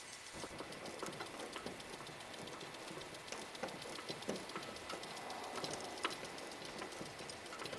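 Irregular light clinks and knocks of chain and come-along hardware being handled and taken down.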